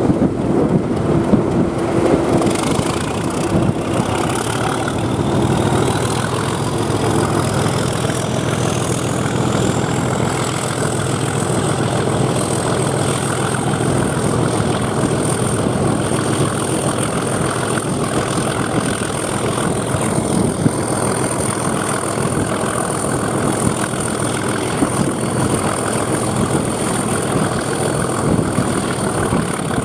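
Class 37 diesel locomotive's English Electric V12 engine under power, heard from an open window of the coach behind it. A high turbocharger whistle rises steadily in pitch over the first ten seconds, then holds a steady high whine.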